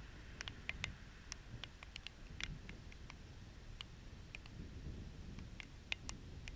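The first raindrops of a thunderstorm striking a GoPro camera: faint, sharp ticks at an irregular pace, about a dozen, over a low, steady rumble.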